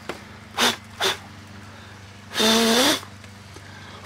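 A person blowing breath into a sand mold cavity to clear loose sand: two short puffs about half a second and a second in, then a longer blow of about half a second a little past two seconds in.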